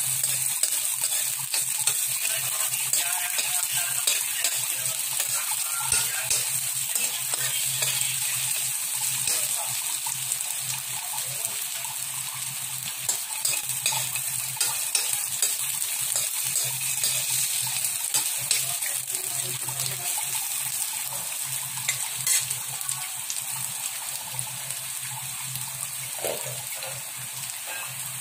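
Sliced onion, ginger and garlic sizzling and crackling in hot oil in a wok, with a metal spoon scraping and tapping against the pan as they are stirred.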